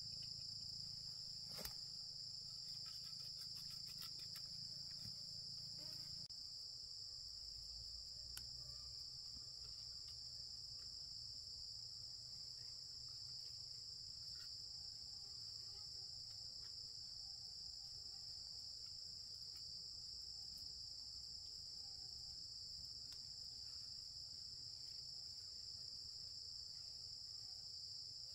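Steady, unbroken high-pitched shrilling of an insect chorus, with a few faint clicks and taps in the first few seconds.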